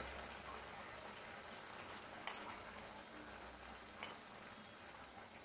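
Faint, steady sizzling from a pan of cooked-down chicken curry as raw rice is poured in from a bowl and pushed in by hand, with two small clicks about two and four seconds in.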